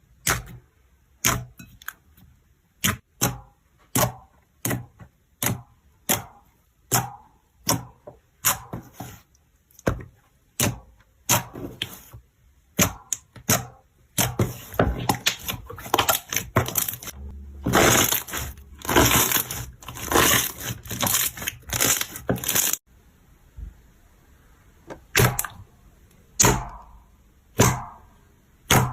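Slime being worked by hand, squeezed and poked, giving sharp pops about once a second, then a long run of dense crackling in the middle before the spaced pops return.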